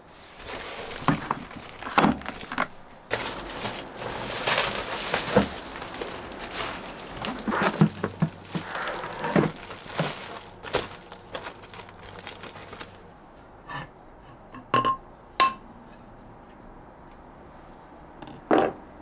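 Bricks and a heavy plastic sack of coarse sea salt being set into a large plastic basin: a dense run of knocks, thuds and rustling plastic for about thirteen seconds. Then come a few separate knocks and short clinks, with a sharp knock near the end as an earthenware onggi jar is handled.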